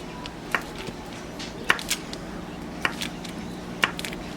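A stick of butter being chopped into little pieces with a utensil that is not a knife: about five sharp taps, irregular and roughly a second apart, over a low steady hum.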